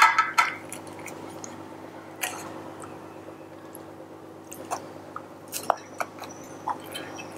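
Soft wet squishing and small taps as coffee-soaked ladyfingers are pressed into place in a stainless steel dish by hand, over a faint steady room hum.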